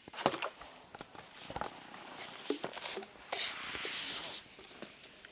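A sleeping young dog snoring and snuffling, with one long, loud breathy hiss a little past the middle and scattered small clicks and rustles around it.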